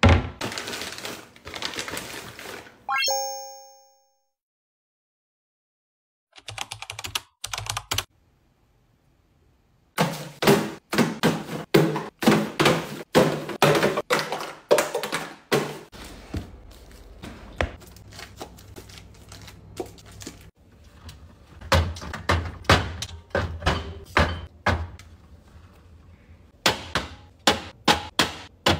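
Close-miked household handling sounds: a cabinet door thunks at the start, then a string of sharp taps, clicks and knocks. About three seconds in there is a short ringing tone. Near the end come quick regular clicks as aluminium cans are set onto a fridge shelf.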